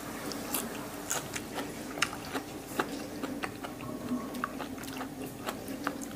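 Close-up chewing of a mouthful of fresh herbs, with many short wet clicks and crunches, over a faint steady low hum.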